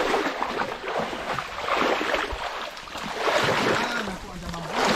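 Swamp water sloshing and splashing in irregular surges.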